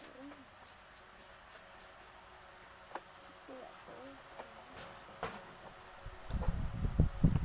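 A steady high-pitched trill runs throughout, with scattered faint clicks. About six seconds in, a louder irregular low rumbling and knocking starts, like something being handled close to the microphone.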